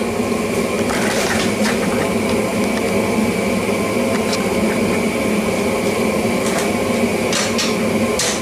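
Gas forge burner running with a steady, even rush. Near the end a couple of hammer blows ring on the steel anvil as forging begins.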